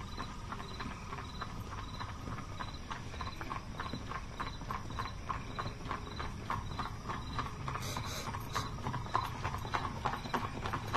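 Horse hooves clip-clopping at a steady walking pace, approaching and growing louder toward the end.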